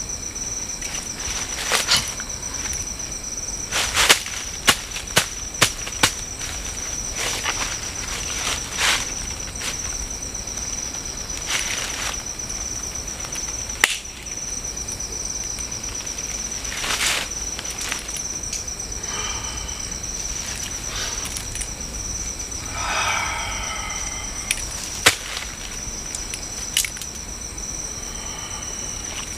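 Night insects, crickets chirring steadily at a high pitch, with repeated sharp crackles and rustles of dry leaf litter as someone moves and handles things at the foot of a tree, thickest in the first third and once more near the end.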